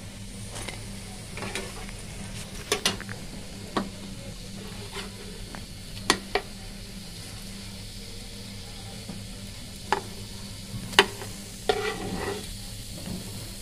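Shami kebab patties shallow-frying in oil in a non-stick pan, sizzling steadily, while a flat spatula knocks and scrapes against the pan a dozen or so times as the patties are lifted out.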